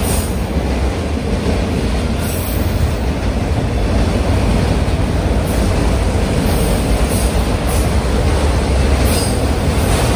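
Enclosed autorack freight cars of a Kansas City Southern train rolling past close by: a loud, steady rumble and rattle of steel wheels on rail, with a few brief high hisses now and then.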